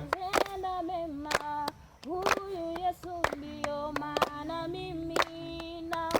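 Group of voices singing a Swahili gospel praise song softly between the louder chorus lines, holding a slow, drawn-out melody, with hand claps about once a second.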